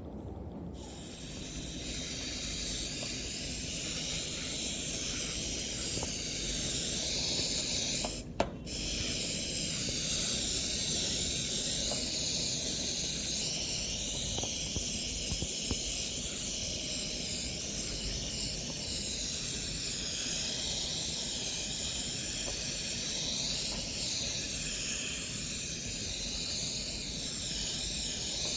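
Aerosol electronics cleaning spray hissing steadily from the can's nozzle as it is sprayed over a computer motherboard. There is one brief break with a click about eight seconds in.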